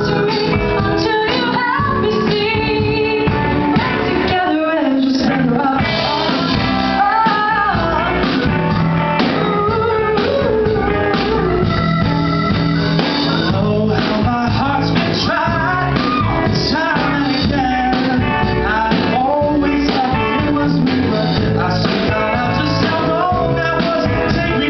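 Live pop-rock duet by a small band: electric guitar, bass guitar and drum kit playing, with a woman singing and a man singing alongside her.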